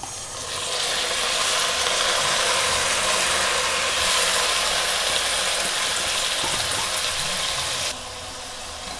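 Washed, soaked rice poured into hot ghee in a pressure cooker, sizzling and crackling hard. The sizzle drops away sharply about eight seconds in.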